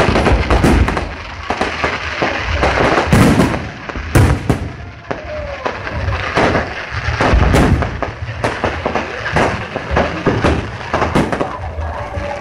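Fireworks display: aerial shells bursting overhead one after another, many bangs in quick succession over a steady crackle.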